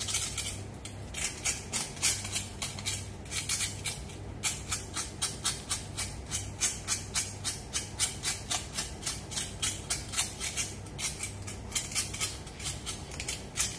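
Charred skin being scraped and rubbed off a fire-blackened pork trotter by hand at a steel sink. It is a run of quick rasping scrapes that come sparsely at first and then two to three a second.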